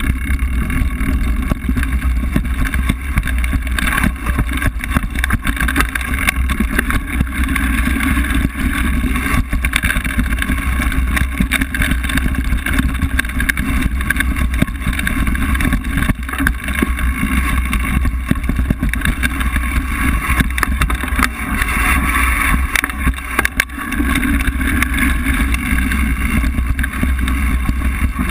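Mountain bike riding over a dirt forest trail: a steady rush and rumble on the bike-mounted action camera's microphone, with many small rattles and knocks from the bike and tyres over the bumpy ground.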